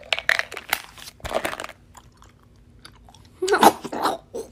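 Crunchy biting and chewing close to the microphone, in a run of sharp crunches during the first second and a half. A short, louder voice-like sound comes about three and a half seconds in.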